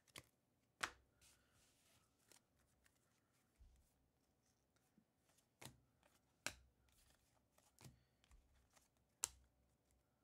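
Baseball trading cards being flipped through by hand, one card at a time, each card giving a short, sharp flick or snap against the stack, about six times, spread unevenly through the quiet.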